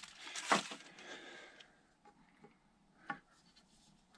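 Hands working on a motorcycle fork while fitting its dust seal: one sharp knock about half a second in, light rustling that fades out by about a second and a half, then a single click about three seconds in.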